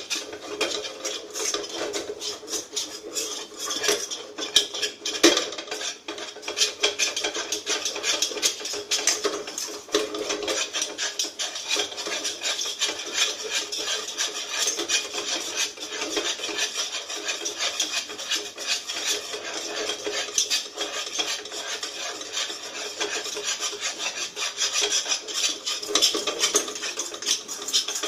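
Spatula scraping and stirring thick, cooked-down milk solids around a non-stick kadhai in quick, continuous rasping strokes. The milk has reduced so far that its fat is separating out as ghee.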